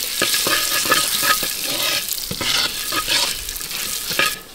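Chopped cashew pieces roasting in ghee in a brass uruli, stirred with a wooden spatula. There is a steady sizzle with repeated scraping strokes of the spatula against the pan, easing off just before the end.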